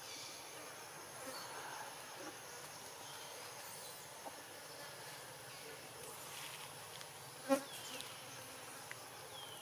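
Steady high-pitched buzzing of forest insects, with a few faint short falling chirps and one brief sharp click-like sound about seven and a half seconds in.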